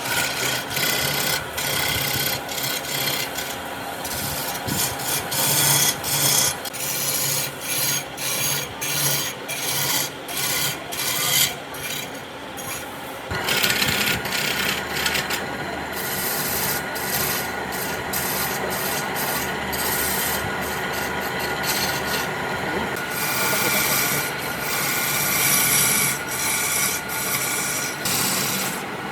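Abrasive rubbing and scraping on wood, as in sanding or rasping a workpiece. It comes in repeated strokes at first, then runs steadier and more continuous from about halfway through.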